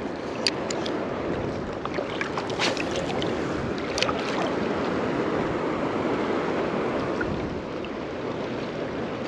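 Steady wash of small choppy waves and wind on open water, with a few short clicks in the first four seconds.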